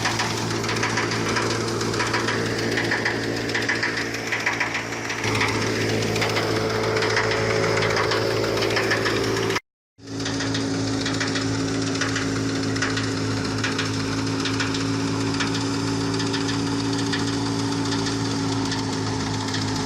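Engine-driven wheat threshing machinery running steadily: a constant engine hum with fast rattling. The sound cuts out for a moment just before the middle, then comes back with a steadier, higher hum.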